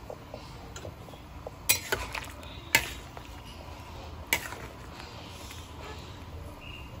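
A cooking spatula knocking and clinking against the metal pan while a pot of sopas is stirred: four sharp knocks in the first half, the loudest a little before the middle.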